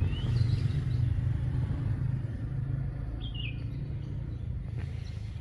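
A 250 cc ATV engine idling at the exhaust: a steady low rumble. A bird chirps a few short falling notes near the start and again about three seconds in.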